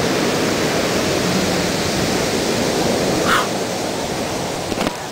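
Pacific surf breaking and washing over shore rocks: a steady rushing roar of white water. A brief short sound cuts through about three seconds in, and a click comes near the end.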